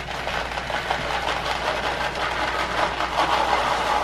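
Dry puppy kibble poured from a plastic cup into a stainless steel bowl of milk-replacer liquid: a steady, dense rattling patter of pellets sliding out of the cup and dropping into the bowl.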